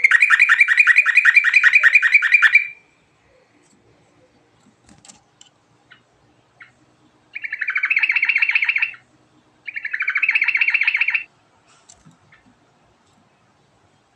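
Sooty-headed bulbul (trucuk) singing fast trills of evenly repeated notes, about ten a second. A long trill comes at the start, then two shorter ones about seven and ten seconds in.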